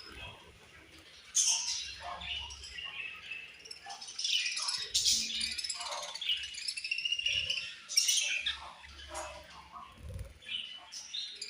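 A group of budgerigars chirping and warbling, several birds calling over one another without a break, with louder calls about a second in, midway and about eight seconds in.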